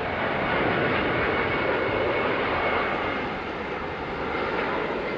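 Jet airliner engines running, a steady rushing noise with a thin high whine over it that swells slightly and eases off.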